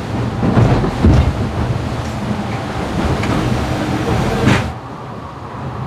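Wind and rushing water on a racing yacht under sail, with wind buffeting the microphone and irregular low thumps. The high hiss cuts off suddenly near the end, leaving a lower rumble.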